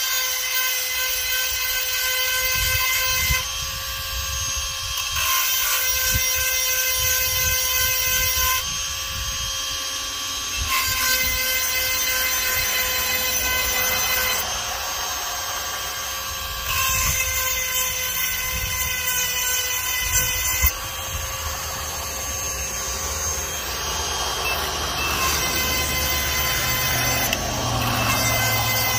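Cordless rotary tool sharpening a chainsaw chain: its small motor runs with a steady high-pitched whine, and the sound changes every few seconds as the bit grinds each cutter tooth and is moved on to the next.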